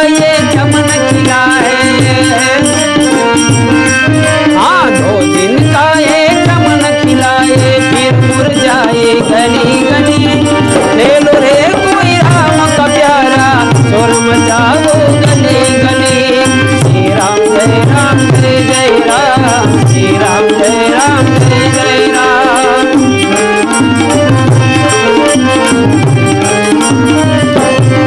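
Instrumental interlude of a devotional dhun: a harmonium-led melody over a steady hand-drum beat, with jingling percussion on top.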